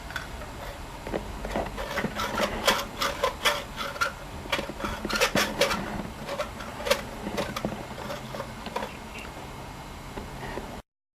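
A hand reamer scraping and clicking against the end of refrigerant tubing in uneven strokes, over a low steady hum. The sound stops abruptly near the end.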